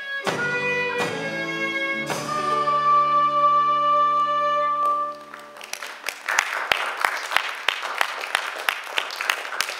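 Acoustic folk ensemble, fiddle among the instruments, ends a piece on a long held chord. Audience applause starts about halfway through as the chord dies away.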